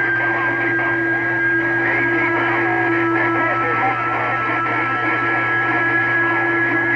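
CB radio speaker carrying several stations transmitting at once on the same channel: a garbled, jumbled mix of voices and noise with steady heterodyne whistles from the overlapping carriers.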